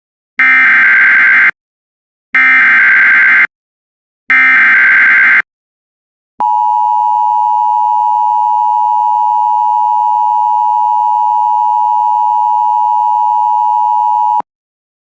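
Emergency Alert System SAME header: three buzzing data bursts of about a second each, two seconds apart. Then the EAS two-tone attention signal (853 and 960 Hz) sounds, held steady for about eight seconds before cutting off. Together they mark the start of a broadcast emergency alert, here a severe thunderstorm warning.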